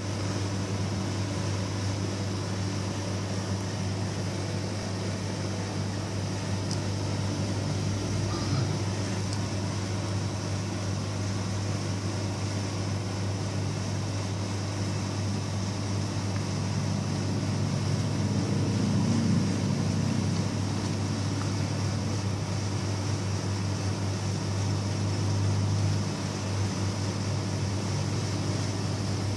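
Steady low mechanical hum with a constant hiss over it, unbroken throughout.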